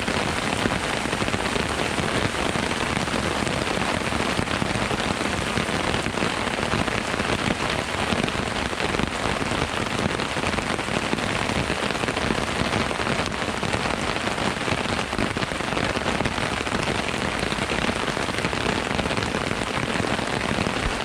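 Heavy rain pouring down steadily, a dense hiss of countless drops.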